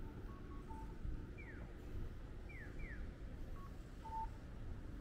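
Electronic chirps of a Japanese pedestrian crossing signal, going in the alternating 'piyo … piyo-piyo' pattern (one falling chirp, then a pair), with a few short beeps and a low steady rumble of street noise beneath.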